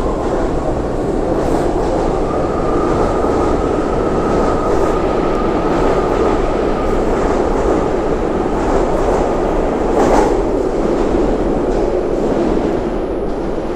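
A 10-car BART Fleet of the Future train pulls out of an underground station into the tunnel: a loud steady rumble of wheels on rail, with a high thin whine over the first several seconds. There is a single sharp clack about ten seconds in, and the noise eases slightly toward the end as the train goes away down the tunnel.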